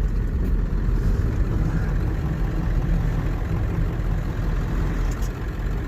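Ford Power Stroke diesel pickup running steadily at low speed, heard from inside the cab as an even low rumble mixed with road and tyre noise.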